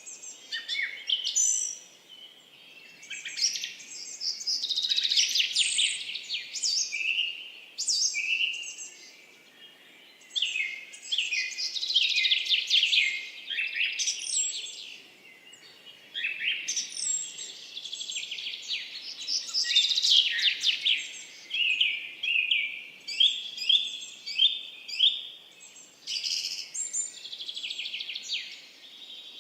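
Songbirds chirping and trilling in quick phrases of one to three seconds, broken by short pauses, over a faint hiss.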